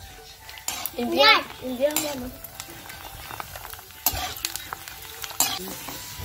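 Puris frying in hot oil in an iron kadhai: a steady sizzle, with scrapes and clinks of a perforated metal slotted spoon against the pan. About a second in, a brief voice rises and falls over it.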